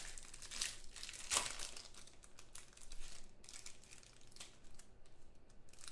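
Shiny wrapper of a trading card pack crinkling and crackling as it is opened by hand, sharpest about a second in, then fainter.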